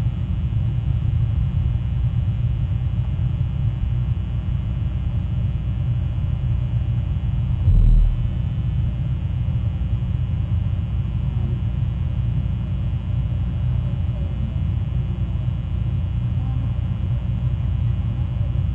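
Steady low rumble picked up by an outdoor wildlife camera's microphone, with one brief louder thump about eight seconds in.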